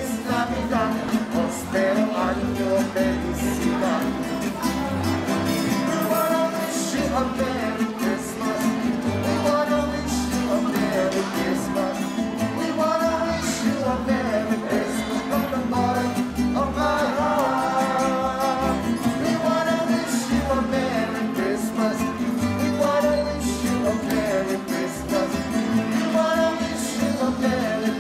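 Live trio of two acoustic guitars and an upright double bass playing a song, with a voice singing the melody over strummed chords and plucked bass notes.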